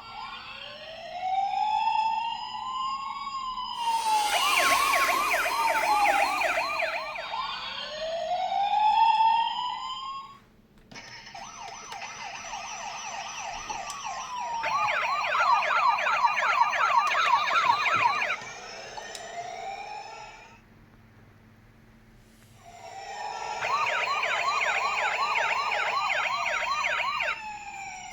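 Toy ambulance minicar's electronic siren: slow rising and falling wails alternate with a fast warbling yelp, and the siren breaks off twice, the second time for about two seconds. A burst of hiss joins it about four seconds in.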